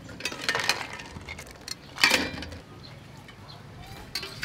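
Raw quail eggs clinking against one another and the steel bowl, in two short bursts of light clicks about a second and a half apart.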